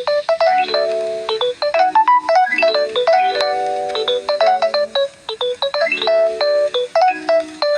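Background music: a light melody of quick, short chiming notes over held chords.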